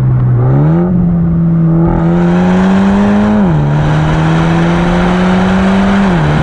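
Remus Race exhaust on a Mini John Cooper Works Clubman's 2.0-litre turbocharged four-cylinder, heard at the tailpipe as the car accelerates. The engine note climbs sharply about half a second in, rises through the gear, and drops with an upshift about three and a half seconds in and again near the end. Wind rushes over the microphone.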